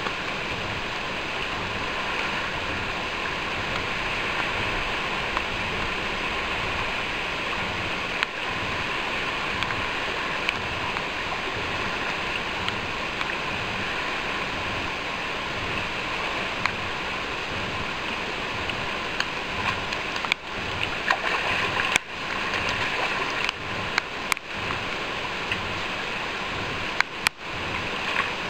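Fast river water rushing steadily over rocks, with several brief clicks and dropouts in the last third.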